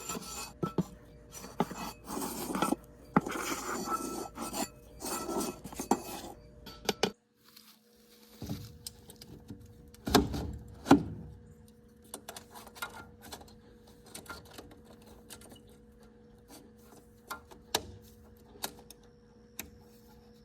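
Metal clinking, clanking and scraping from sheet-steel parts of an outdoor wood boiler being handled. The sounds come thick for about the first seven seconds, stop abruptly, then return as scattered sharp clicks over a faint steady hum.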